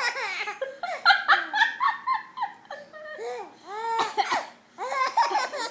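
A four-month-old baby laughing in runs of short, high-pitched bursts, with a brief pause about three-quarters of the way through.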